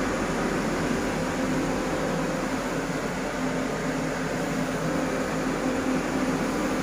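Whirlpool kitchen chimney's blower running at its third speed setting: a steady rush of air with a faint steady hum under it.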